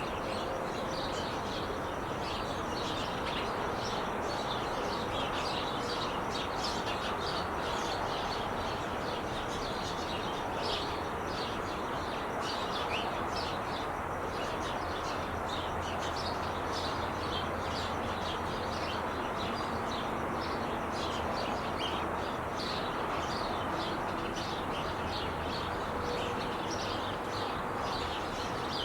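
Steady roar of freeway traffic, with many short high bird chirps and twitters over it.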